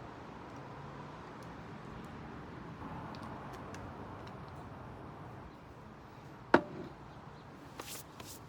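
A single sharp knock of a hard object about six and a half seconds in, ringing briefly, over a steady background hiss, with a few fainter clicks near the end.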